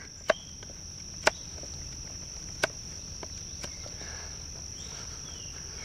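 A knife blade shearing chips off a hardwood stick: about five short sharp cracks at irregular intervals, over a steady high-pitched insect buzz.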